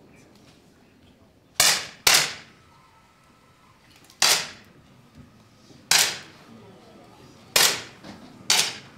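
10m air pistols firing in a shooting hall. There are six sharp, cracking shots at irregular intervals, each with a short echo, the first two about half a second apart.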